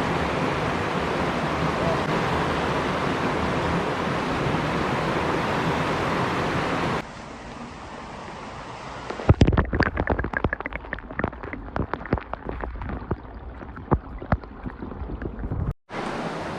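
Mountain stream water rushing steadily, then it cuts off abruptly about seven seconds in. A quieter stretch follows, with a run of irregular sharp clicks and knocks.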